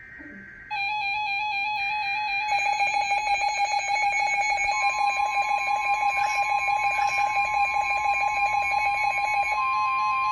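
Weather radio alert: a warbling electronic alarm with a fast pulsing layer, and under it from about four seconds in the steady single-pitch NOAA Weather Radio warning alarm tone. The warbling alarm stops near the end while the steady tone holds on.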